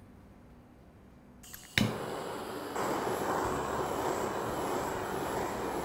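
Handheld kitchen blowtorch lit with a sharp click about two seconds in, then burning with a steady hissing rush that grows a little stronger a second later.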